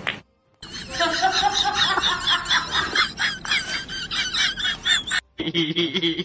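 A cat vocalizing in a rapid run of short calls that keep changing pitch, cut off abruptly about five seconds in. After a brief gap a steadier pitched sound starts.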